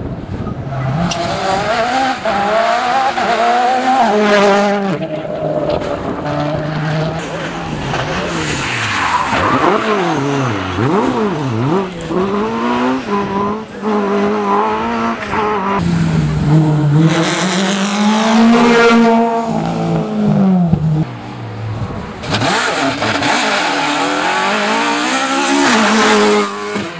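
Rally car engines at full throttle as the cars race past one after another, pitch climbing and dropping with each gear change.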